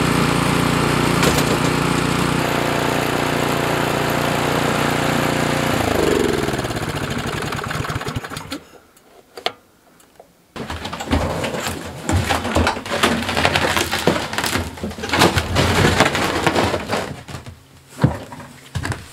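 Cub Cadet snowblower engine running steadily, then shut off about six seconds in, its pitch falling as it winds down to a stop. After a short quiet, irregular clicks and knocks follow.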